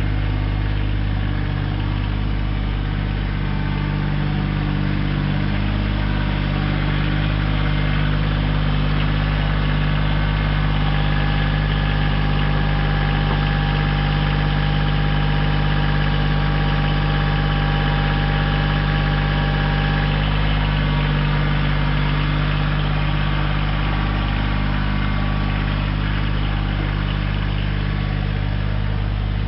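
Kioti CX2510 compact tractor's three-cylinder diesel engine running steadily as the tractor moves about with its loader forks. A higher steady whine rides on top from about ten to twenty seconds in.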